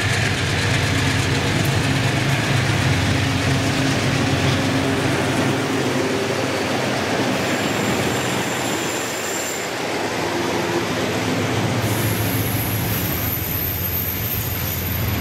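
Freight train passing close by on a curve: the GE diesel-electric locomotives' engines run with a low hum as they go past, then the container flatcars roll by with steady wheel-on-rail noise. A thin, high wheel squeal comes in near the end.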